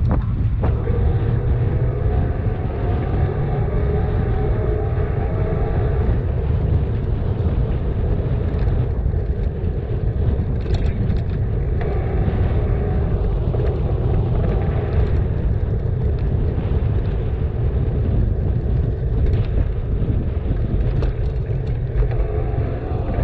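Steady wind rush on the microphone of a camera on a moving bicycle, with road traffic faintly under it and a few light clicks and knocks from the ride.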